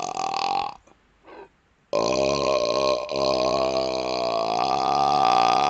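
A man burping: a short burp at the start, then about a second later a long, drawn-out burp held steadily for several seconds, rising a little in pitch near the end.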